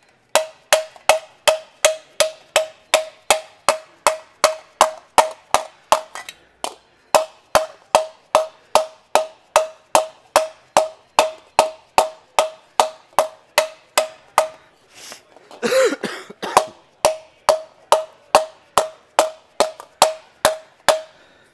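Hand hammer blows on a sheet of aluminium held over a steel post stake, shaping the panel. A steady run of sharp strikes, about two and a half a second, each with a short ring. There is a brief pause about six seconds in and a short break around fifteen seconds in.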